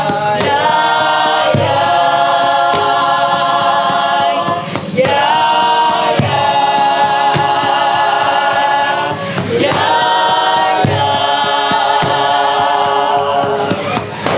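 A group of voices singing held chords a cappella in phrases of a few seconds, with a sharp tap about once a second keeping the beat.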